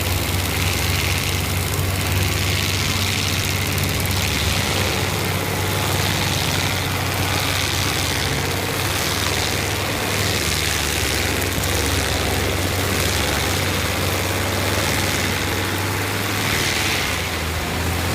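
Heavy machinery engine running steadily under load, a constant low hum with a hiss of mechanical noise above it.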